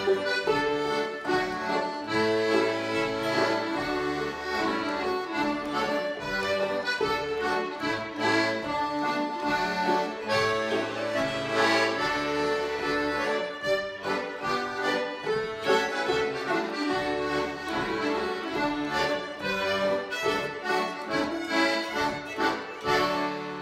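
Old-time band playing an instrumental tune on fiddle, piano accordion, banjo and button accordion, with the accordions carrying the melody over a steady beat. It settles onto a held final chord at the very end.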